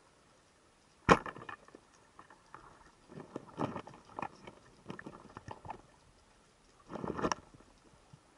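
Underwater, a speargun fires with one sharp crack about a second in. It is followed by irregular clattering knocks as the spear shaft, with a speared moray eel on it, strikes the rocky bottom, and by another loud cluster of knocks near the end as the eel is pulled out.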